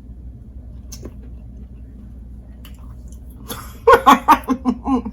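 Soft chewing of food, with a faint click about a second in, then a woman's voice starts about three and a half seconds in and is the loudest sound.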